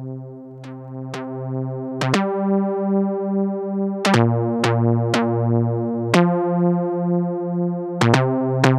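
TAL-Elek7ro software synthesizer playing a repeating pattern of sustained sawtooth notes, changing every half second to two seconds, each note starting with a sharp, bright attack. The level pulses about twice a second as an LFO modulates the stereo pan.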